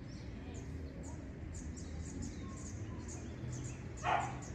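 Birds chirping in quick, high, repeated notes over a low steady background hum; a single short, louder sound cuts in near the end.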